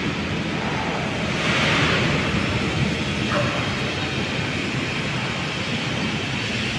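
SWF overhead crane running on its runway rails during a load test, a steady rumbling noise with a brief louder hiss about one and a half seconds in.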